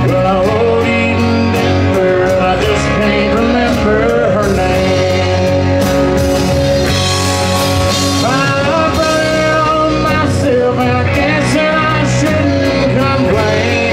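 Live country-rock band playing: electric guitar, acoustic guitar, bass guitar and drum kit, over a steady drum beat with bending guitar or vocal notes.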